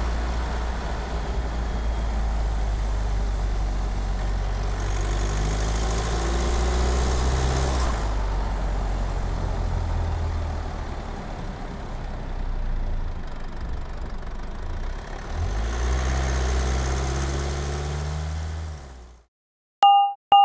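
A vehicle engine idling with a steady low running note, revving up twice, about five seconds in and again near the end, then cutting off. A moment later a timer alarm starts beeping rapidly, about two beeps a second, as the countdown reaches zero.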